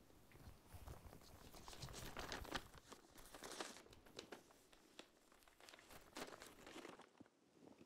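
Faint crinkling and rustling of paper being handled and unfolded, a scatter of short crackles and scrapes.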